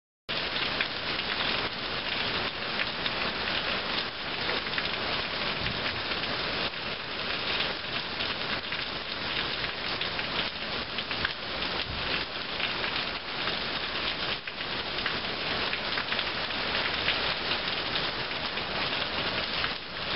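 Steady rain, with runoff spilling off a roof edge: a continuous, even hiss of falling water that begins abruptly just after the start.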